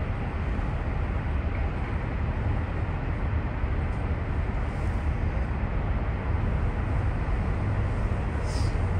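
Steady low rumble of vehicle noise, with a brief faint high-pitched sound about eight and a half seconds in.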